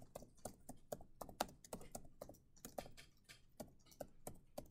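Typing on a computer keyboard: a quick, uneven run of faint keystrokes, several a second.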